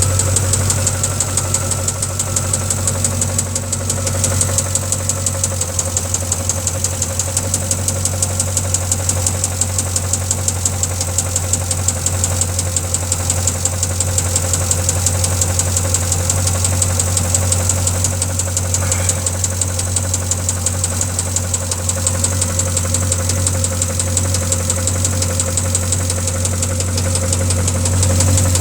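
Engine running steadily at an even speed with a rapid, regular knocking. The uploader calls the noise engine knock.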